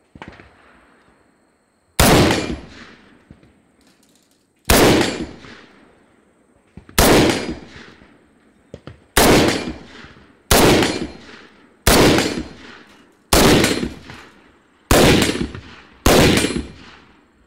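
Springfield Armory M1A SOCOM II rifle firing nine semi-automatic shots of .308 Winchester (7.62x51). The shots come at an uneven pace that quickens from about two and a half seconds apart to just over a second apart, and each loud crack trails off in a ringing echo.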